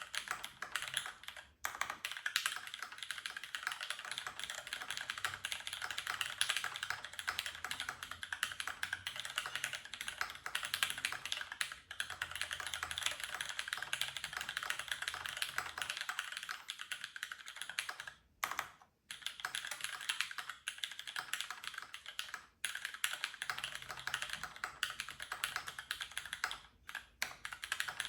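Continuous fast typing on a mechanical keyboard with Cherry MX Brown tactile switches, an aluminium plate and GMK doubleshot ABS keycaps: a dense patter of key clacks, with short pauses about 15 seconds in and again a few seconds later.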